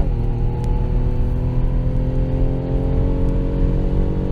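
Mercedes-AMG GLC43's twin-turbo V6 at full throttle down a drag strip. The pitch drops suddenly right at the start with an upshift, then climbs steadily as the car keeps accelerating.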